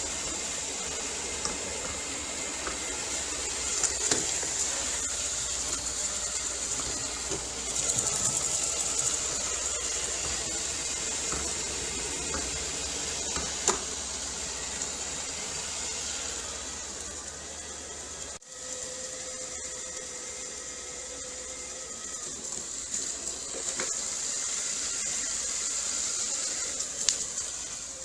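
Robot vacuum cleaner running: a steady whirring hiss from its suction fan with faint clicks and brushing noises. There is a brief break about two-thirds of the way through.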